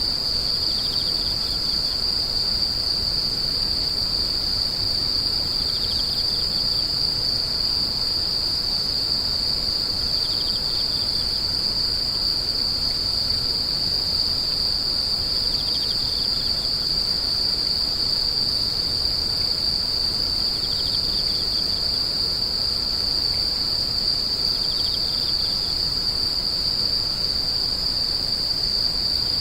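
Grass insects singing in one steady, unbroken high-pitched drone, with a fainter short trill just below it repeating about every five seconds.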